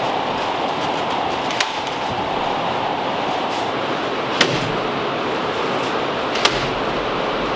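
Nail gun firing three sharp shots a couple of seconds apart as ceiling boards are fastened overhead, over a steady rushing hum.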